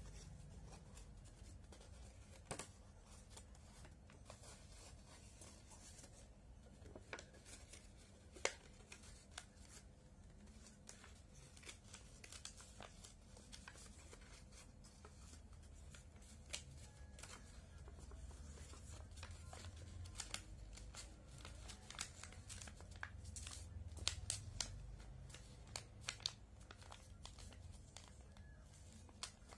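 Origami paper being handled and folded by hand: faint scattered rustles and crisp creasing taps, a few sharper ones now and then, over a low room hum.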